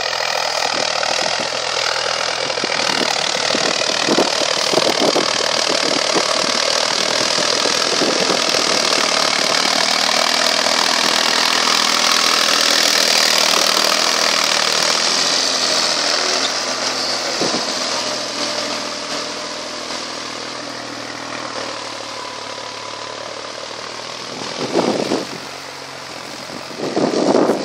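Erkunt Bereket 90 tractor's diesel engine working under load while ploughing, growing louder as the tractor passes close about halfway through, then fading. Two brief gusts of wind hit the microphone near the end.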